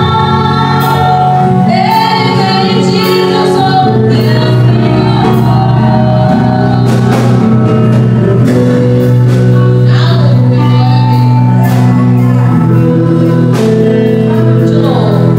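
A gospel song sung live into microphones by a woman and a small boy, with instrumental accompaniment.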